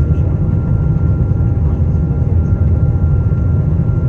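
Cabin noise of a Boeing 777-200ER with GE90 engines moving slowly on the ground: a loud, steady low rumble from the engines and the rolling airframe, with a faint steady whine above it.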